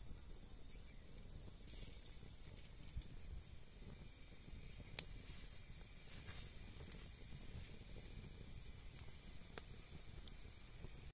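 Faint crackling of a wood fire burning under a cooking pot: a few sparse ticks over a faint hiss and a low rumble.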